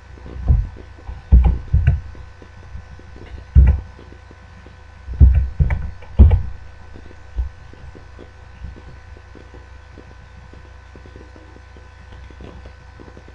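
Computer keyboard keystrokes heard as about eight irregular low thuds while a word is typed, over a steady electrical hum.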